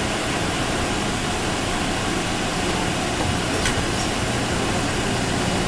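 Steady hum and hiss inside an automated airport train car, with one brief click about three and a half seconds in.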